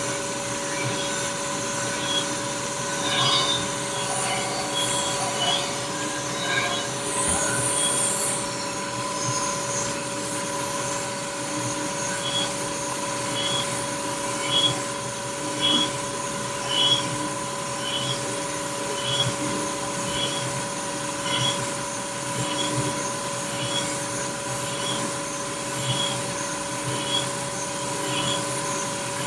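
Machine tool running steadily while machining an S44 engine block: a steady motor whine. From about twelve seconds in, a light tick repeats a bit under twice a second.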